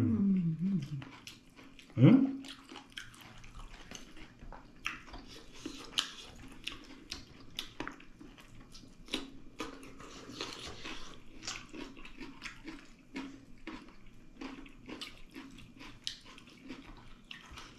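Close-up eating sounds: chewing and lip-smacking as two people eat pork leg and lentil dal with rice by hand, with many small crisp clicks from bites of raw vegetables such as cucumber. A brief murmur of voice about two seconds in.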